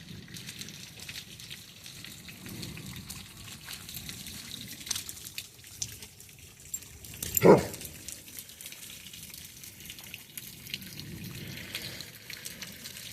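Rain dripping and trickling, with many small scattered ticks of drops striking surfaces. About seven and a half seconds in comes one brief, louder sound that falls quickly in pitch.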